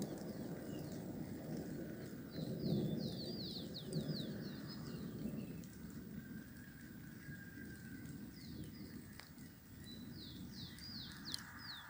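Distant thunder rumbling low and slowly dying away. Over it a songbird sings two quick phrases of sharp, downward-slurred whistled notes, one a few seconds in and one near the end.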